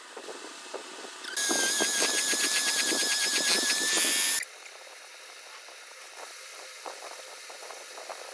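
Electric hand mixer whipping cream at high speed: a loud, high-pitched motor whine with a fast, even pulsing. It starts about a second in and cuts off suddenly after about three seconds, leaving only faint clicks and rustles.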